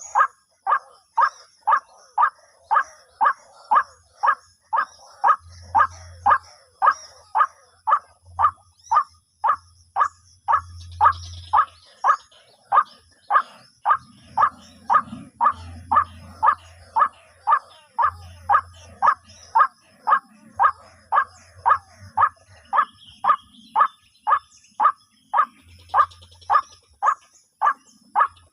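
White-breasted waterhen calling, a short note repeated very evenly about twice a second without a break, over a faint high buzz of insects.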